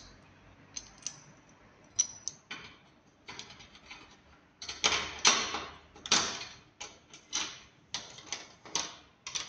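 Metal clicks and short scrapes of an open-ended spanner turning the bolt on a solar panel clamp and knocking against the clamp and panel frame as the panel is fixed to its rail. The clicks come irregularly, sparse at first and denser in the second half.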